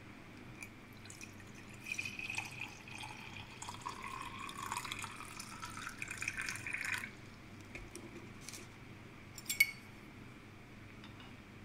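Water poured in a thin stream into a stainless steel Turkish coffee pot (cezve) for about five seconds, its pitch rising as the pot fills, then stopping suddenly. A single sharp clink follows a couple of seconds later.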